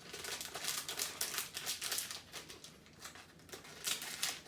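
A small mystery-pack wrapper crinkling and rustling in rapid bursts as it is handled and torn open by hand, with a short burst again near the end.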